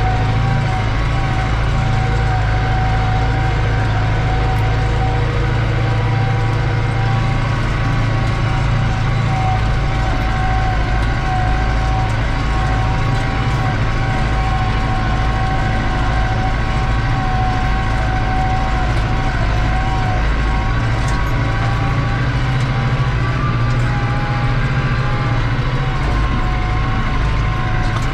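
New Holland TD85 tractor's turbocharged diesel engine running steadily under load while pulling a disc harrow, heard from inside the cab. A low, even drone carries a steady turbo whine above it.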